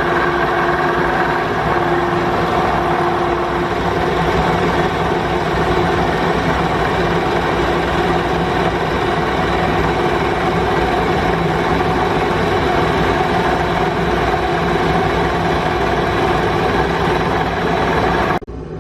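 Milling machine cutting steel, squaring up the rough edges of a plasma-cut piece: a steady machining noise with a held hum, which stops suddenly near the end.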